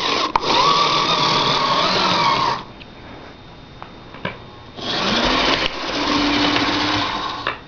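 HO scale model locomotive going along the track with a whir of wheels, gears and motor, twice, each run about two and a half seconds with a quiet pause between; a steady tone runs through each, and the second one starts with a short rising note.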